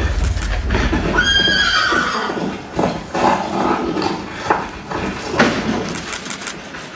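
A horse whinny about a second in, falling in pitch, as a low rumble drops away.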